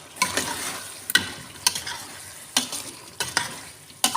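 Potatoes and chopped spinach being stir-fried in a pot, sizzling, while a spoon stirs and knocks against the pot about seven times at uneven intervals.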